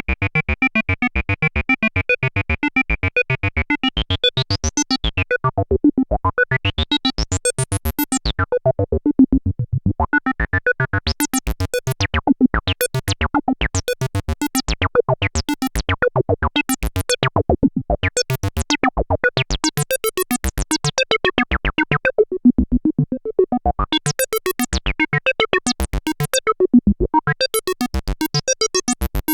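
Arturia MicroFreak synthesizer playing a squelchy acid bass sequence: a fast, even run of short notes with a resonant filter sweeping open and closed, some stretches bright and some dull.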